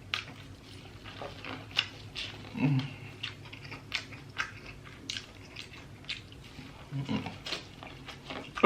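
Close-miked eating of a sauced seafood boil: wet chewing, lip smacking and sharp little mouth clicks, with two brief low murmurs about three and seven seconds in.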